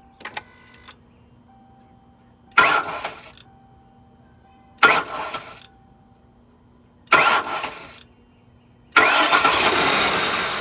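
2007 Lincoln Town Car's 4.6-litre V8 cranked by the starter in three short bursts of just under a second each that don't catch, then starting about nine seconds in and running steadily. The engine runs smoothly with no belt squeal, a new idler pulley just fitted.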